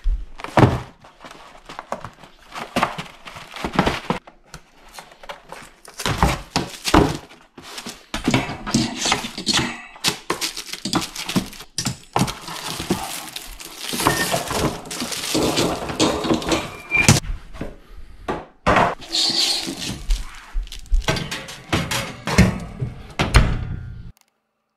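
Kitchen handling of a frozen pizza and a wire oven rack: irregular knocks, clicks and clatters with cardboard rustling, stopping abruptly near the end.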